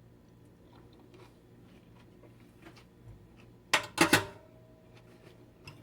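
A metal spoon clattering against a bowl: a few sharp clinks about four seconds in, one leaving a short ring, after faint small clicks of kitchen handling.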